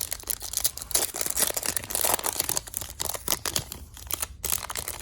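The wrapper of a 2019 Panini Prizm basketball card pack being torn open and crinkled by hand, a dense run of crackles and small snaps.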